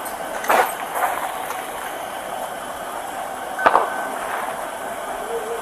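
A few short, sharp knocks and clinks over a steady background hiss: one about half a second in, a lighter one soon after, and the loudest a little past the middle.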